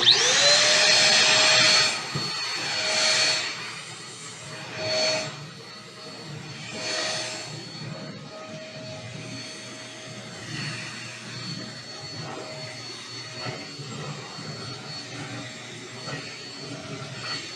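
MEIYOU corded stick vacuum cleaner switched on, its motor spinning up within a fraction of a second to a steady high whine. It runs over carpet, loudest for the first two seconds, then quieter and swelling and dropping every two seconds or so.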